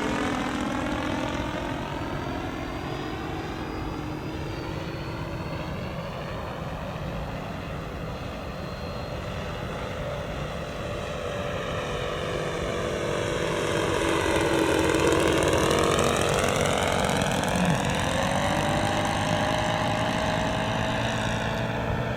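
Radio-controlled model Cessna 337 Skymaster in flight, its engines and propellers running steadily; the sound grows louder about two thirds of the way through as the plane passes closer, with the pitch bending, then eases slightly.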